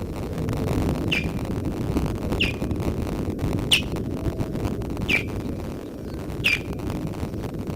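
Osprey alarm calls: five sharp, downward-sliding whistled notes, one about every 1.3 seconds, over a steady low background rumble.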